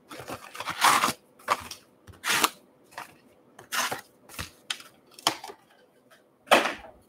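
Trading-card packs being pulled out of an opened cardboard hobby box and stacked: a series of short wrapper crinkles and rustles, the loudest near the end.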